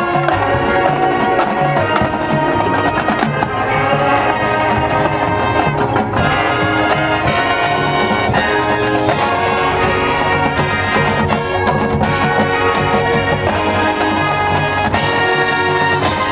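Marching band playing: brass section of trumpets and trombones sounding held chords over marching drums.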